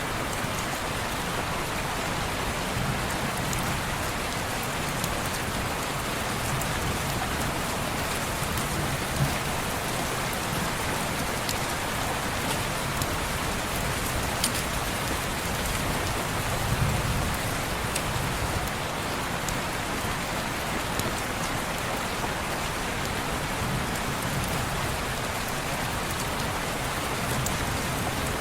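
Steady heavy rain falling on a window, an even hiss with a few sharp ticks from single drops. Soft low rumbles swell and fade now and then, the strongest about halfway through.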